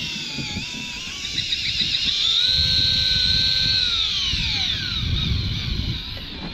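Electric fishing reel's motor whining as it winds line, its pitch sliding down and up with the load. It holds a steady high whine a little over two seconds in, then falls away about four seconds in, over a low rumble.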